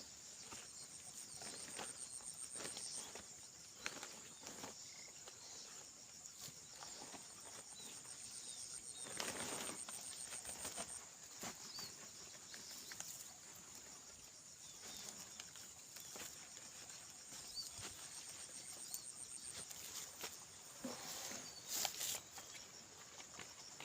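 Insects trilling in a steady high pulsing drone, with scattered short knocks and rustles; a louder rustling stretch comes about nine seconds in and a sharp knock near the end.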